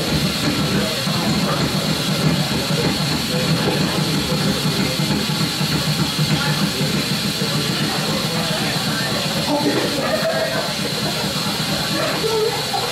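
Improvised noise music from saxophone and amplified lap-held guitar: a dense, steady drone with a low buzz underneath and a thin high tone on top. A few short pitched notes break through near the end.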